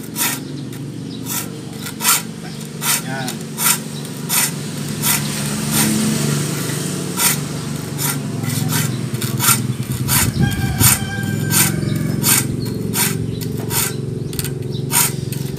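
Steel hand file rasping across the teeth of a handsaw clamped in a vise, in short strokes about twice a second, sharpening teeth dulled by long use. The strokes come faster in the second half.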